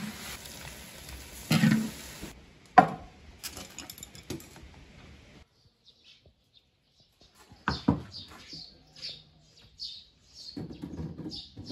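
Wild apricot pieces sizzling in a wok while being stirred with a metal ladle, followed by a few knocks. After a short quiet gap, hands squeeze soft cooked apricots in a bowl of syrup with wet squelches and a run of short high squeaks about twice a second.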